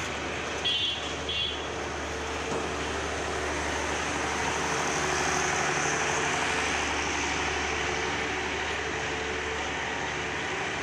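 Bangladesh Railway passenger train rolling slowly alongside the platform: a steady low rumble and hum from the moving coaches. Two short, shrill sounds about a second in.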